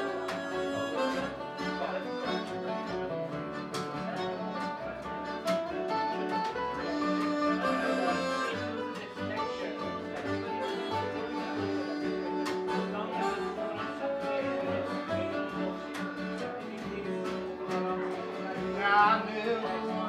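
Acoustic band playing an instrumental break: two acoustic guitars strumming, a harmonica carrying the lead over them, and an upright bass plucked in a steady low pulse underneath, with a louder rising phrase near the end.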